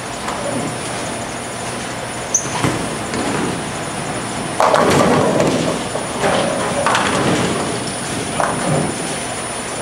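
Bowling alley sounds: a bowling ball drops onto the lane with a short thud a few seconds in and rolls, then about two seconds later pins crash, the loudest sound. Smaller pin crashes follow over the steady din of balls rolling on the lanes.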